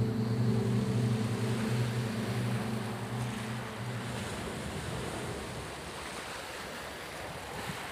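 Steady rushing wash of sea surf. For the first four seconds a held low chord sounds over it, then stops.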